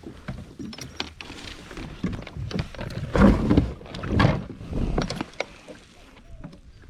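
Knocks, clicks and rustling on a kayak as a just-landed fish is handled, with two louder bumps about three and four seconds in.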